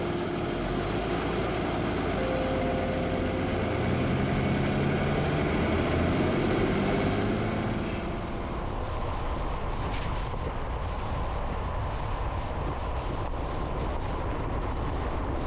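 Jeep engine running, then rising in pitch as it pulls away and gathers speed; from about eight seconds in, a steady driving rumble with scattered ticks.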